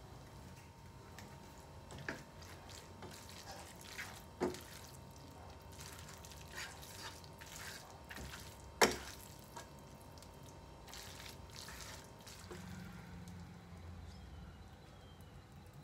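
Fettuccine being tossed in a frying pan with a pasta server and spatula, mixing a raw egg yolk through: soft wet squishing and scraping, with a few sharp knocks of the utensils on the pan, the loudest about nine seconds in.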